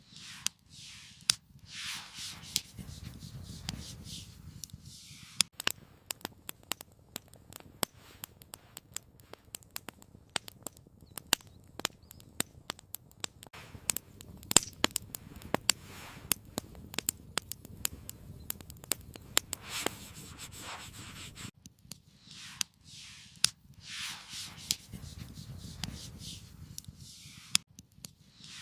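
Wood campfire crackling, with many irregular sharp pops, densest through the middle. Soft swishing rustles come in near the start and again near the end.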